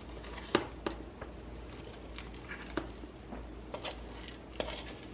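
A few light, scattered knocks and scrapes of kitchen utensils and cookware over a steady low hum, the sharpest knock about half a second in.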